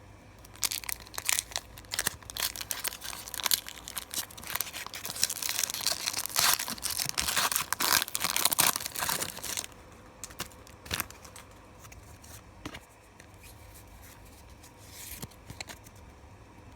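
Foil wrapper of a Pokémon TCG booster pack being torn open and crinkled, a dense run of sharp rips and rustles lasting about ten seconds. After that come softer, scattered clicks and rustles as the cards are handled.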